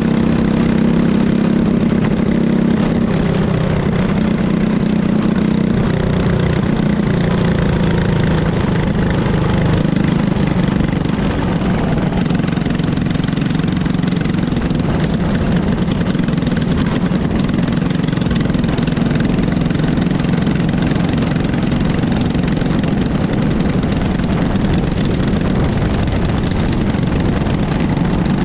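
Racing kart engine running steadily at a nearly constant pitch, wavering only slightly, with no rising or falling revs.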